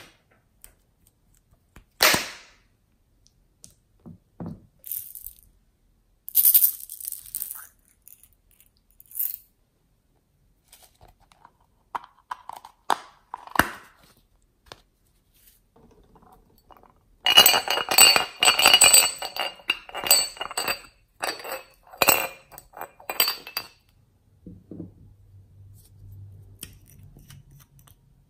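Small containers of slime add-ins being handled: scattered sharp clicks and taps of plastic and metal caps and cases. Partway through comes a dense run of clinks and rattles, the loudest part, followed by a soft low rumble near the end.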